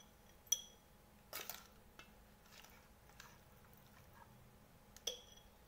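A spoon scooping and scraping chilli pickle out of a stainless steel bowl into a glass jar: a light ringing clink of the spoon on the bowl about half a second in and another near the end, with soft wet scrapes between.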